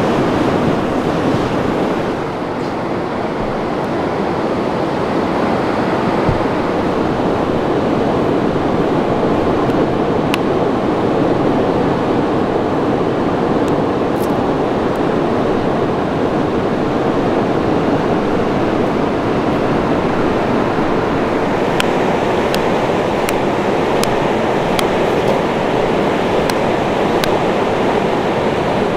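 Steady rushing outdoor noise, with a few sharp clicks in the last third.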